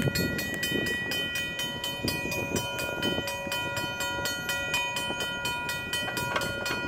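Railroad grade-crossing bell ringing in rapid, even strokes, about five a second. It is the crossing's warning that a train is approaching.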